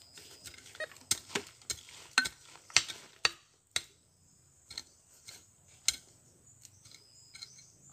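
A hand digging tool knocking and scraping into stony soil, digging out a metal detector target. The strikes are irregular and come in quick runs, the loudest about three seconds in.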